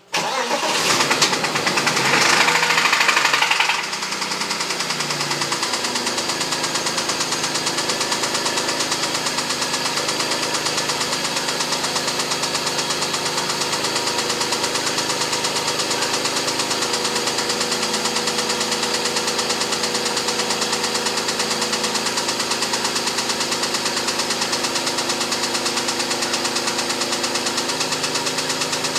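BMW E39's M52TU straight-six engine starting, running faster and louder for about four seconds, then settling to a steady idle with a fast, even knocking from the area of the VANOS units. The owner cannot tell whether the knock comes from the VANOS or from worn bearing shells.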